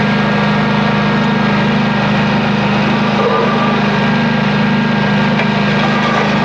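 Pacific Tek PV-100 vacuum excavator's engine running steadily under load, with the rush of air as the duck-bill pickup wand sucks water and slurry off wet pavement.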